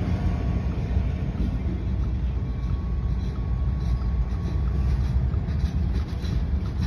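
Freight train with a diesel locomotive and boxcars passing a road crossing, heard from inside a stopped car: a steady low rumble.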